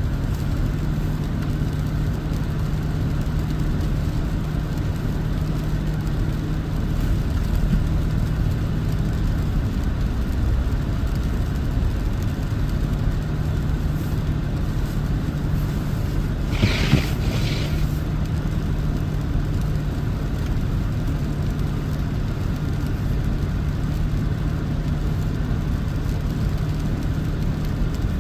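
Toyota 4Runner driving on unplowed snowy road: a steady, even engine drone with road and tyre noise. About two-thirds of the way through comes a brief double higher-pitched noise.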